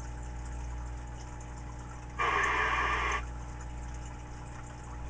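CB radio speaker between transmissions: faint hiss over a steady mains hum, broken about two seconds in by a burst of static lasting about a second.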